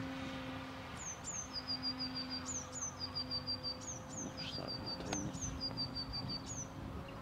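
A songbird singing repeated phrases, each of two high down-slurred notes followed by a quick run of about five even notes. Under it runs the steady hum of a ParkZone Extra 300 model plane's electric motor and propeller.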